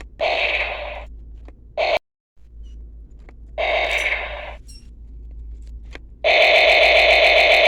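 Electronic firing sound effects from a toy gun's small built-in speaker. There are short buzzy bursts near the start, around 2 s and about 3.5 s in, with faint clicks between them. About 6 s in, a continuous rapid-fire burst begins.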